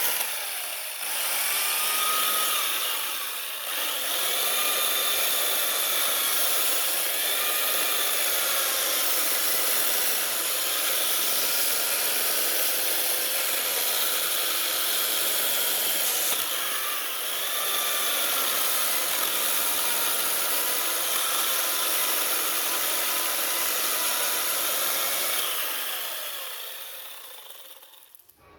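Power tool cutting and working wood: a steady rasping noise with the motor's pitch wavering as the load changes. It fades out near the end.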